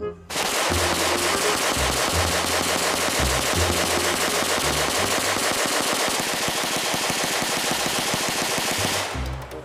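Rotary minigun firing one long continuous burst, the shots so fast they run together into a rapid ripping buzz. It starts a moment after the beginning and stops suddenly shortly before the end.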